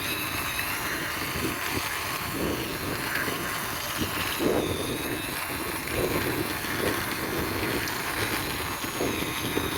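Toy double-decker bus pushed along by hand, its plastic wheels rolling on the ground with a steady rolling noise.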